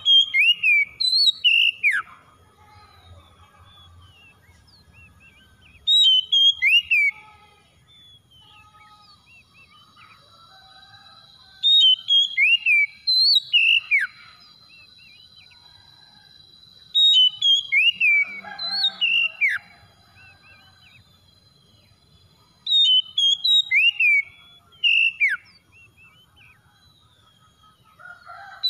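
Oriental magpie-robin singing: loud phrases of sweeping whistled notes, each lasting one to two seconds, repeated five times about every five to six seconds, with quiet gaps between.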